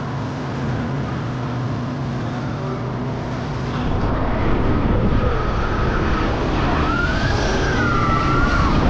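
S&S Space Shot drop tower launching: a steady rushing noise that grows louder about four seconds in as the seats are shot up the tower by compressed air, with a wavering high tone rising and falling near the end.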